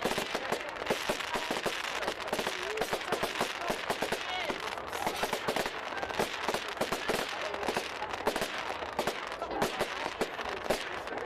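Fireworks going off: rapid sharp bangs and crackles one after another, several a second, with voices in the background.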